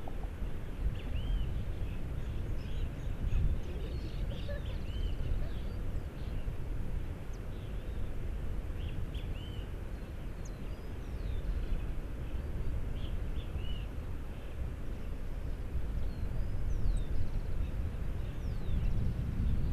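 Small birds chirping in short, scattered calls over a steady low rumble of outdoor noise.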